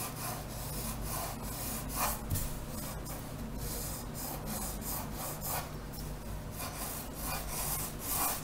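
Pencil sketching on paper: a series of short, quick strokes scratching across the sheet, about one to two a second, as straight construction lines are drawn.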